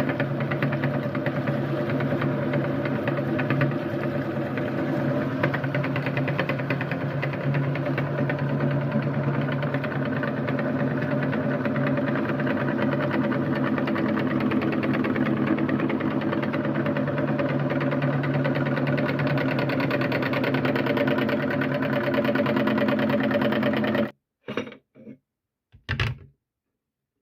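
Electric meat grinder motor running steadily with an even hum, grinding corn, then switched off abruptly near the end, followed by a few brief clicks.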